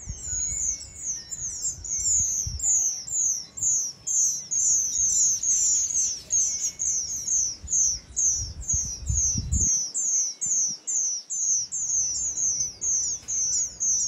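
Cape rock thrush nestlings calling in a rapid, steady series of short, high, falling notes, about three a second.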